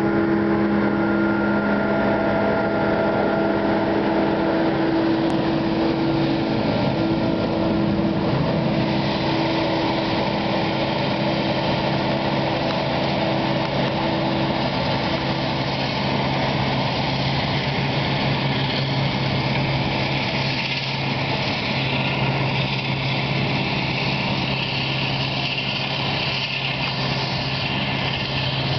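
Claas Jaguar 900 forage harvester and tractors chopping maize for silage, running with a steady machinery drone. Several steady whining tones sound early and fade out by about halfway. A lower engine hum comes in about a third of the way through as a New Holland tractor with its trailer draws near.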